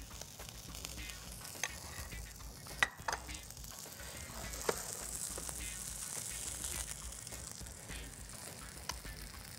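Oil sizzling steadily in a frying pan as the sea bass fillets fry, with a few light clinks of a metal spoon against a small saucepan.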